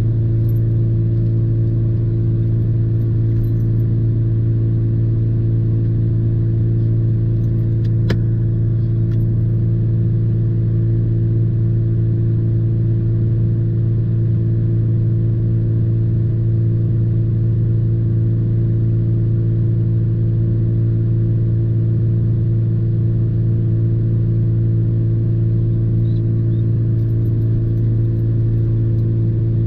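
Truck engine idling with a steady low hum, heard from inside the cab. A brief click about eight seconds in.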